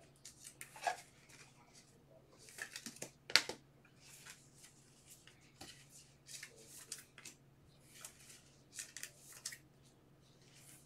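Faint, scattered rustles and light clicks of hands handling things at a desk, with one sharper click about three and a half seconds in, over a faint steady low hum.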